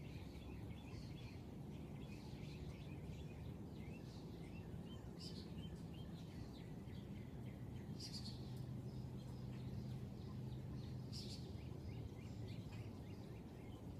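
Faint, rapid high-pitched chirps from small animals, with a few louder ones every three seconds or so, over a low steady hum.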